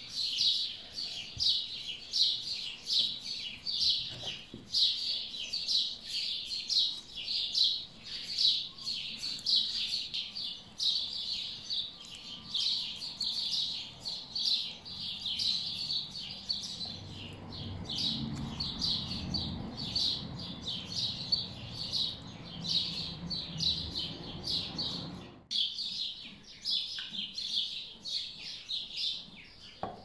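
Songbirds chirping in quick, high, repeated notes without a break. A low steady noise joins them for several seconds past the middle.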